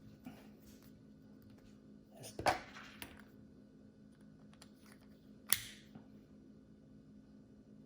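Sharp plastic clicks and snaps from a remote key fob being handled: two loud snaps about two and a half and five and a half seconds in, with a smaller click between them, over a faint steady hum.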